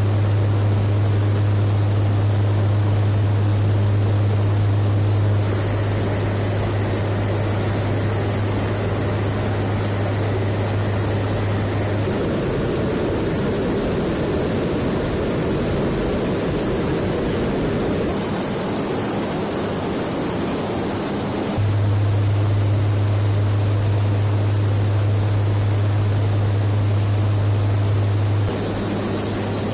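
Steady low drone of a KC-130J Hercules tanker's turboprop engines and propellers, a deep even hum. Abrupt edits change it, and for about ten seconds in the middle the hum gives way to a rougher, broader rushing noise.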